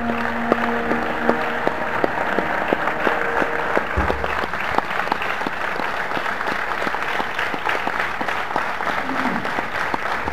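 Audience applauding steadily in an auditorium at the end of the song, a dense patter of many hands clapping. A last held note from the accompaniment fades out in the first second or so.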